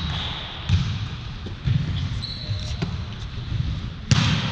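Volleyball play on a hardwood gym court: sneaker squeaks on the floor and the thuds of the ball being hit, with the loudest hit near the end.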